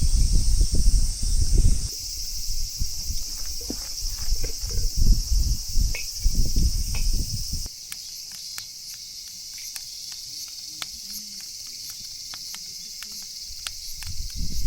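Insects trilling steadily outdoors in a high, even chorus. Through the first half, irregular low rumbling and thumps sit beneath it, then drop away about three-quarters of the way... about halfway through, leaving the insect chorus with a scatter of light clicks.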